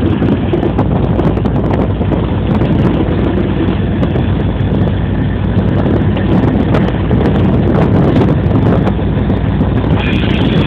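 Wind rushing over the microphone over the steady rumble of a moving freight train, heard from aboard its locomotive.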